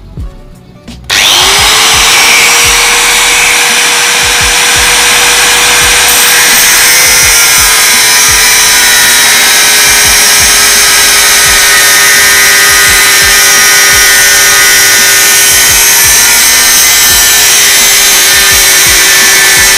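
Bosch GWS 060 4-inch angle grinder switched on about a second in, spinning up at once to a loud, steady whine. It then cuts through 3 mm steel flat bar with an abrasive cut-off wheel, its pitch sagging slightly under the load of the cut.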